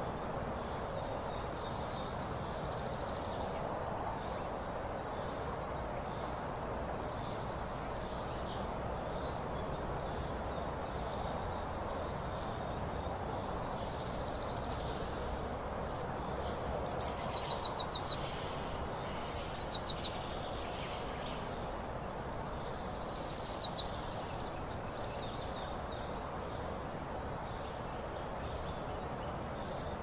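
Wild songbirds calling: fainter high chirps throughout, and three louder fast trills of rapidly repeated notes in the second half, each about a second long or less. A steady background hiss lies underneath.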